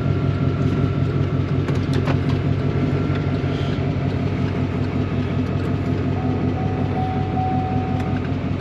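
Truck engine idling steadily, with a few light clicks about two seconds in and a faint steady tone for about two seconds near the end.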